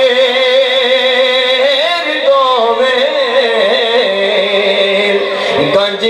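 A man singing a devotional Sufi song into a handheld microphone, his amplified voice holding long, wavering notes, with a brief break near the end.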